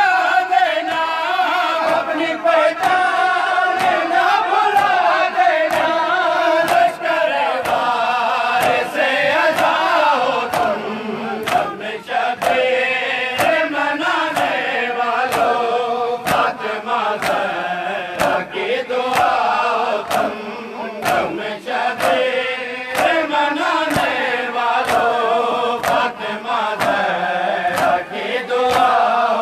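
A group of men chanting a Shia noha in unison, with a steady beat of sharp hand slaps about once a second keeping time.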